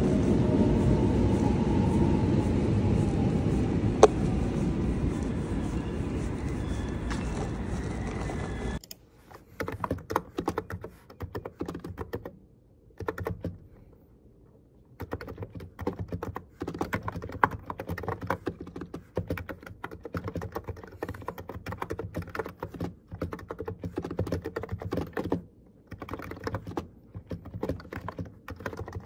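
Background music for about the first nine seconds, cutting off abruptly. Then fast typing on an electro-capacitive computer keyboard: a quick patter of key presses with two short pauses.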